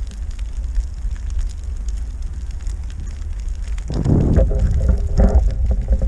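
Wind buffeting the microphone, a steady low rumble, with a louder gust about four seconds in and another about a second later.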